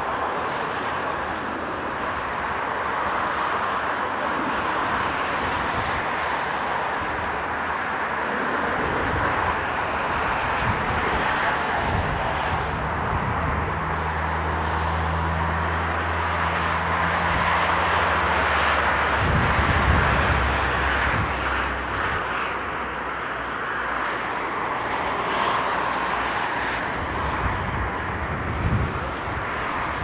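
Boeing 777-300ER's GE90 jet engines on final approach and landing: a steady, loud rushing whine that grows to its loudest a little after the middle, around touchdown, with a low hum underneath for several seconds.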